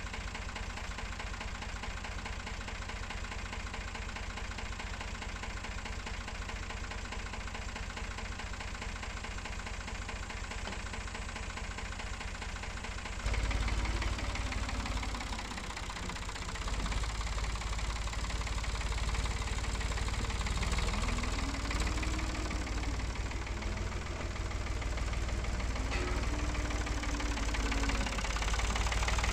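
Tractor engine running steadily. About 13 seconds in it gets louder and deeper, and its pitch then rises and falls slowly several times as the engine works.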